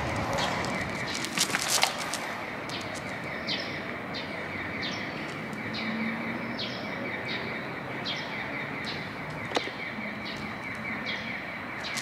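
Outdoor ambience: small birds chirping every second or so over a steady background hiss, with a fast, even pulsing chirr running underneath and a few light clicks.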